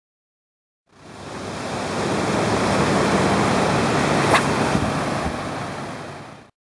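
Surf breaking on a beach with wind on the microphone, an even rushing noise that fades in about a second in and fades out near the end. One brief sharp sound stands out about four seconds in.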